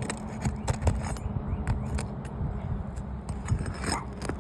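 Irregular clicks, taps and scrapes of asphalt shingles being lifted and handled on a roof, over a continuous low rumble.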